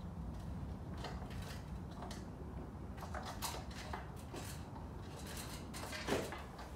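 Scattered light clicks, clinks and scrapes of tools and metal parts being handled on an aluminium sliding door frame, with a louder knock and scrape about six seconds in, over a steady low background rumble.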